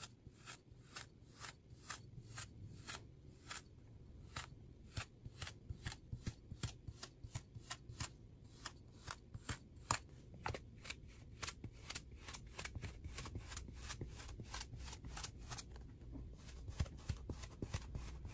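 Kinetic sand crunching as a round metal tube cutter is pushed into moulded sand shapes again and again: a quick, crisp crunch two or three times a second.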